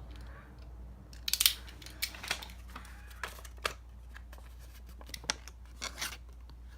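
Metal blade of a Gerber multi-tool knife clicking and scraping against a pad of sticky notes in a series of short strokes, loudest about a second in. The blade is too dull to cut into the paper.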